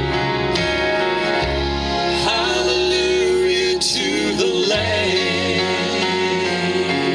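Country gospel band music: guitar over a bass line, with a wavering melody line that slides in pitch.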